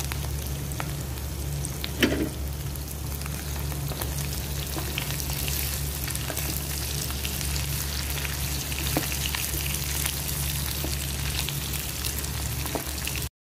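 Dried anchovies (dilis) frying in hot oil in a pan: a steady sizzle with scattered small crackles and one louder pop about two seconds in, over a low steady hum. The sizzle cuts off just before the end.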